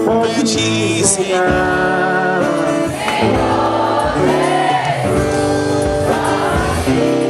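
Christian worship song: voices singing together over long held accompanying chords.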